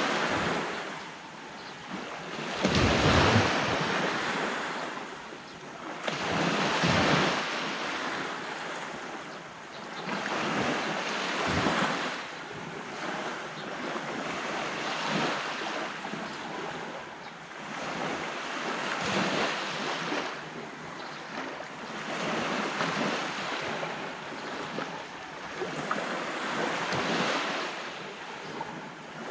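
Sea waves breaking and washing up a beach, swelling and fading about every four seconds, with wind on the microphone.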